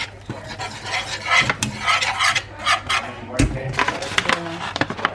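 Wire balloon whisk scraping and stirring a thick butter-and-flour roux in a metal frying pan, in a run of quick irregular strokes, with one heavier knock against the pan a little past halfway.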